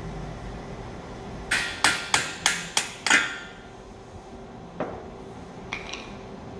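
Hand hammer tapping on steel parts to seat them in an auger's stainless steel bearing housing: six quick, ringing metal-on-metal blows, about three a second. Later a single softer knock and a light clink.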